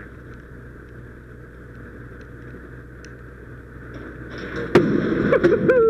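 A padlock being raked with a lock pick and tension wrench, giving faint metallic ticking over a steady engine hum. Near the end comes a sharp metal clack and clatter, and voices start up.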